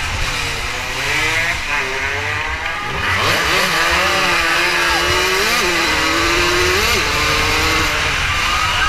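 An 80 cc racing motorcycle engine running hard, heard from on board. Its pitch rises sharply about three seconds in, then holds with small blips as the throttle and gears change, over a heavy rush of wind on the microphone.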